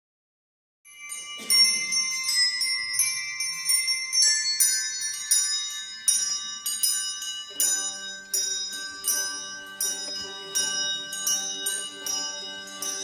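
Small tuned bells struck one note at a time in a slow medieval melody, each ringing on into the next. About halfway through, a steady low drone enters beneath them.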